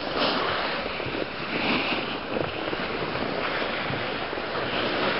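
Wind buffeting the microphone, mixed with a steady hiss and scrape of skis sliding on packed snow, swelling and easing a few times.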